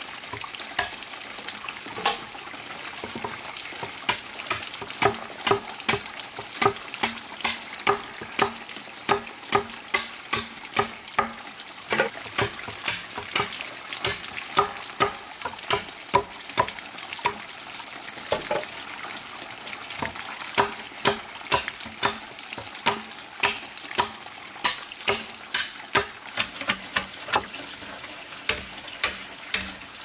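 Machete chopping and splitting bamboo: sharp knocks about two a second, over a steady background hiss.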